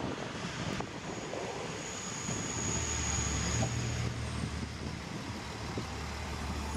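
Diesel railcar passing close beneath, its engine a steady low drone that grows about two and a half seconds in, over a rumble of wheels on track, with a thin high squeal for a couple of seconds.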